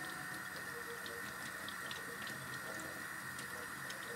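Kitchen tap running steadily into a sink, with faint small splashes and ticks through it.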